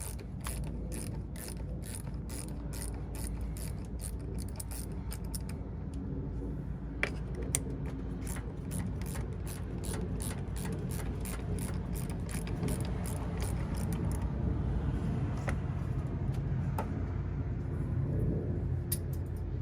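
An 8 mm ratcheting wrench clicking in quick, even strokes as it turns a side-post battery terminal bolt. The clicking thins out to a few single clicks in the last few seconds, over a steady low hum.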